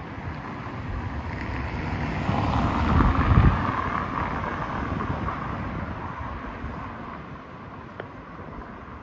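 A vehicle passing by, growing louder to a peak about three seconds in and then fading away, with wind buffeting the microphone.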